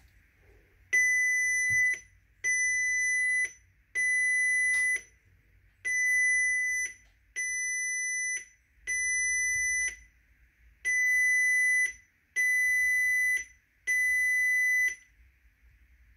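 Audi A3 8P instrument cluster's warning chime sounding nine steady, high beeps of about a second each, in three groups of three.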